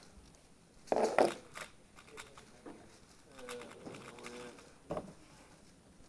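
Room voices murmuring, with a louder short sound about a second in, and a few light clicks of a 3x3 speedcube being turned over in the hands, with one sharper click near the end.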